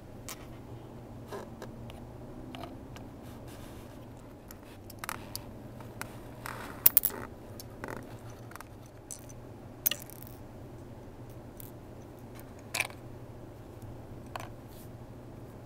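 Scattered light clicks and clacks of hands handling the game board's small Lego door and plastic pieces, with a few sharper clicks spread through, over a steady low hum.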